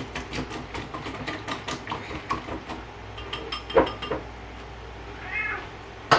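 A whisk clicking rapidly against the bowl as egg is beaten, about five strokes a second, stopping after two and a half seconds, then a single knock. A pet cat gives a short meow about five seconds in.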